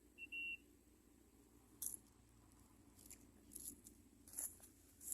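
Near silence, broken by a few faint scattered clicks and rustles of something being handled close by, with one short high chirp near the start.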